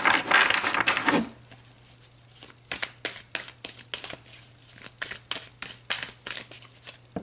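An oracle card deck being shuffled by hand: a dense rustle of cards for about the first second, then a run of sharp, irregular card clicks, two or three a second.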